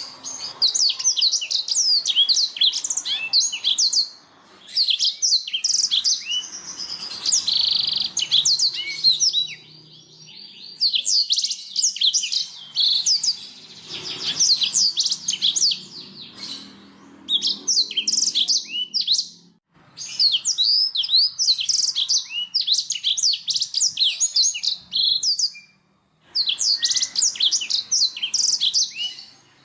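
Domestic canary singing: long phrases of rapid chirps and rolling trills, broken by brief pauses every few seconds.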